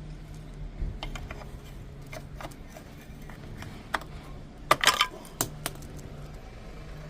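Metal keys and small lock parts being handled: scattered light clicks, then a quick cluster of bright metallic clinks about five seconds in.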